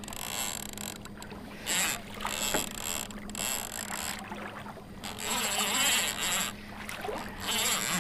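Avet conventional fishing reel under load from a big hooked shark: several short bursts of reel noise, each under a second, coming every second or two.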